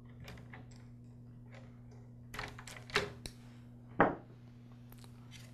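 Small clicks and scrapes of needle-nose pliers working wire spade connectors off the terminals of a cordless string trimmer's trigger switch, with a few sharper clicks in the second half, the loudest about four seconds in.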